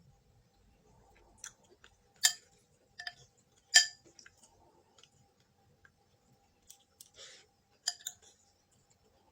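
Close-up eating sounds of braised pork and vegetables: quiet chewing broken by several sharp clicks, the loudest about two and four seconds in, and a brief rustle near the end.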